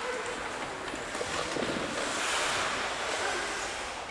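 Wind buffeting the microphone, a steady rushing hiss that swells about two seconds in.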